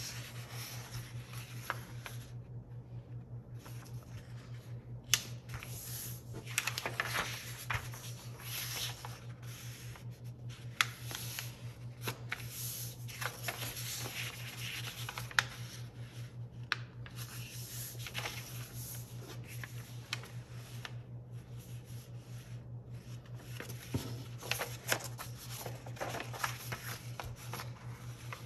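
A sheet of paper being folded by hand on a tabletop: irregular rustling and sliding of the paper, with sharp crackles as folds are pressed into creases.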